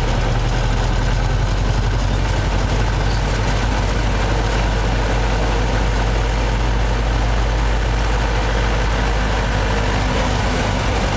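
C3 Corvette's V8 engine and road noise heard from inside the car, a steady drone while it cruises in third gear, with no clunk.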